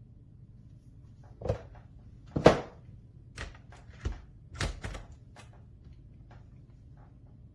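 A string of clicks and knocks from hard mounting hardware being handled, the loudest knock about two and a half seconds in, then a few lighter ticks.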